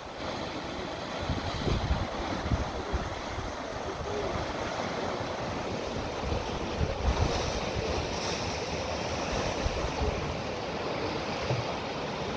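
Sea surf washing and breaking around the foot of basalt column cliffs, a steady wash of water, with wind gusting on the microphone.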